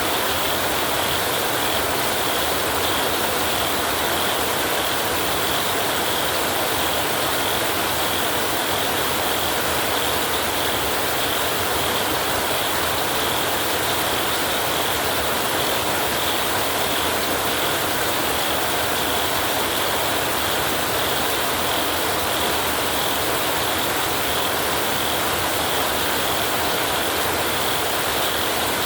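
Heavy rain falling steadily on a tin roof.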